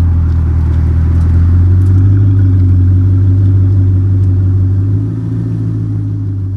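Car engine running at a steady, deep drone, the pitch holding even; its tone shifts slightly about five seconds in.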